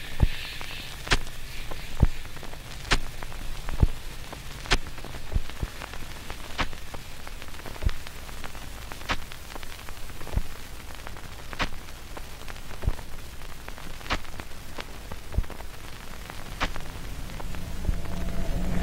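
Irregular sharp clicks and ticks, roughly one or two loud ones a second among fainter ones, over a steady low hiss and hum. Near the end a low droning tone swells in.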